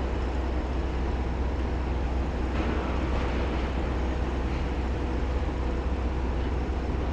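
Steady wind buffeting the microphone, a continuous low rumble with hiss over it.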